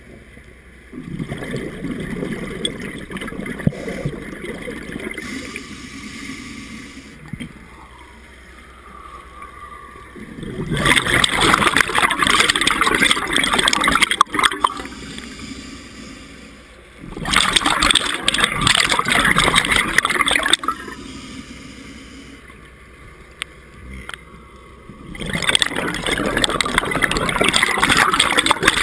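Scuba diver breathing through a regulator underwater: three long, loud bubbling exhalations, about seven seconds apart, with quieter sound between them.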